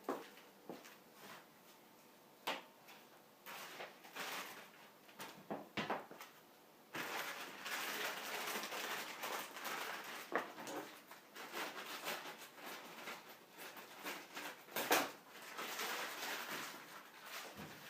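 Hand-handling sounds of unpacking a projector: scattered clicks and knocks, then a long stretch of rustling with more knocks from about seven seconds in, the loudest knock near the end.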